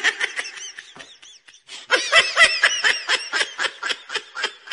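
High-pitched laughter, a rapid string of short 'ha' sounds. It thins out about a second and a half in, then picks up again louder and tails off near the end.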